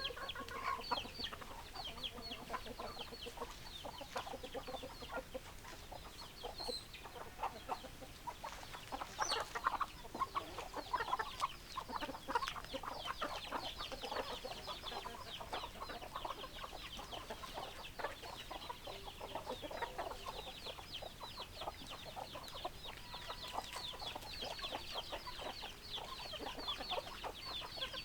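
A flock of chickens clucking, a continuous chorus of many short overlapping calls.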